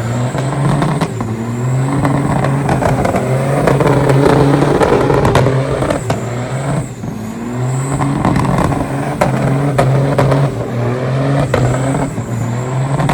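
Semi truck's diesel engine revving hard in a burnout pit, its pitch climbing and dropping in repeated waves every two to three seconds over a dense noisy haze.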